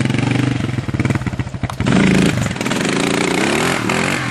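Dirt bike engine running and revving, getting louder about halfway through with its pitch climbing as it picks up speed.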